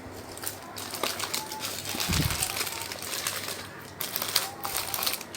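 Irregular crinkling and clicking handling noises, with a low thump about two seconds in.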